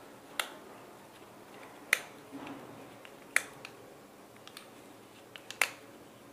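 Sharp metallic clicks as a screwdriver is turned to tighten the screw inside a keyed drill chuck mounted on its adapter shaft, four louder clicks about a second and a half apart with a few fainter ticks between.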